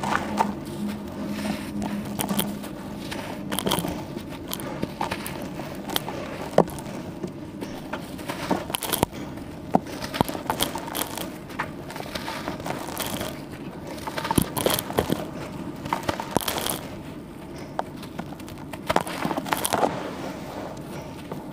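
Hand crumbling and squeezing wet, dusty charcoal slabs in a plastic tub: a continuous gritty crackle with sharp crunches, which come in clusters every few seconds.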